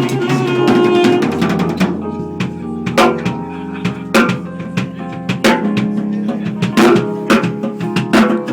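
A band playing with a drum kit and sustained pitched instruments such as bass and guitar, during a sound check.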